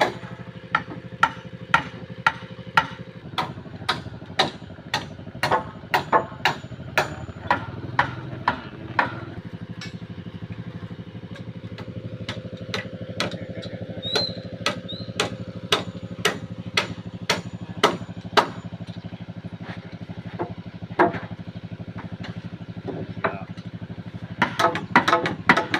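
Repeated hammer blows, about two a second, over an engine running steadily. The blows thin out in the middle and come quickly again near the end.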